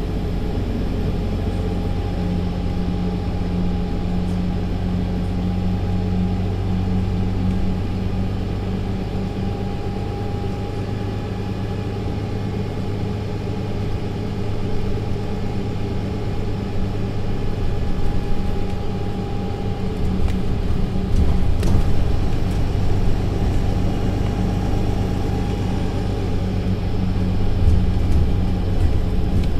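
Mercedes-Benz Citaro C2 LE city bus heard from inside while running: a steady diesel engine hum with a faint whine from the drivetrain, which has a Voith automatic gearbox, and a general road rumble. It grows louder about halfway through and again about two-thirds in, with a brief thump at the second rise.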